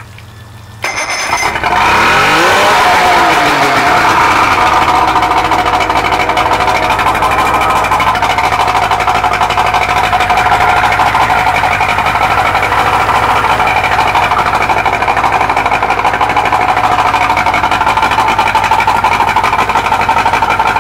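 OMC outboard motor starting about a second in, briefly revving up and settling, then running steadily on a flushing hose. It is the motor that had quit pumping water because of sand and is now pumping water well.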